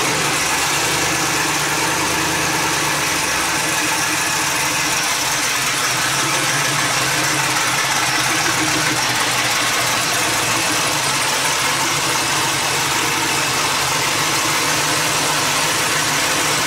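Twin-turbo LS V8 idling steadily just after being started, running to warm up.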